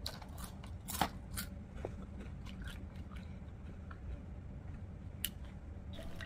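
Close-miked chewing with wet lip-smacking and mouth clicks, a few of them sharper, about a second in and again near the end, over a faint steady low hum.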